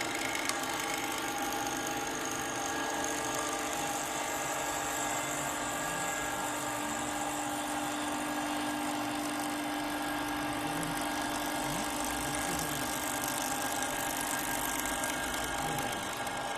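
CNC wood lathe running steadily, its spindle motor and the machine giving a continuous whine made of several steady tones over a noisy hiss.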